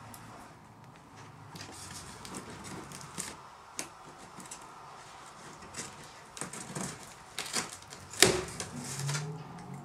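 Packing tape being picked at and peeled off the top seam of a large cardboard box, with scratching and rustling of the cardboard under the hands. The handling gets busier toward the end, the loudest sound a sharp crack about eight seconds in.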